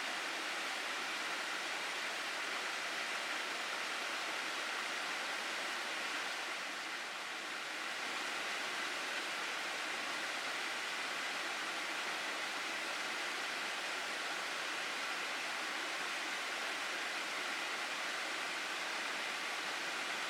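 Steady rush of flowing stream water, briefly a little softer about seven seconds in.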